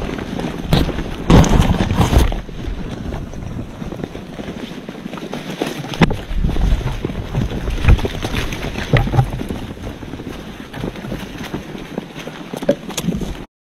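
Wind rumbling on the microphone, with irregular knocks and thumps that are loudest about a second and a half in. The sound cuts off suddenly near the end.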